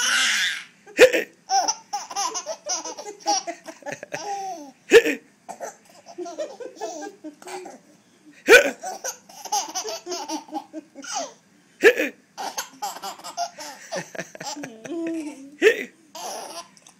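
About five sharp hiccups, one every three to four seconds, each answered by a small child's giggling laughter that runs on between them.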